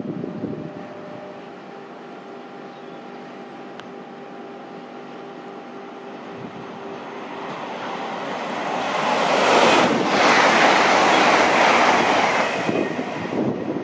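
A TransPennine Express Class 802 bi-mode train passing through at speed. A faint steady hum grows into a loud rush of wheels and air that peaks from about nine to twelve seconds in, then dies away near the end.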